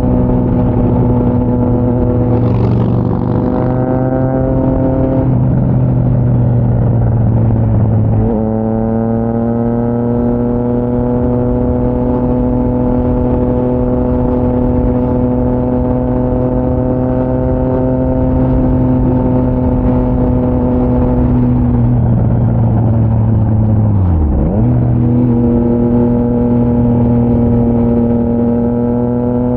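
Triumph Trident 660 inline-three with an aftermarket GPR full exhaust, running under way on the road. Its note holds or climbs slowly for long stretches. It breaks briefly about five and eight seconds in, and again with a dip and recovery around twenty-four seconds in, where the revs drop and pick back up.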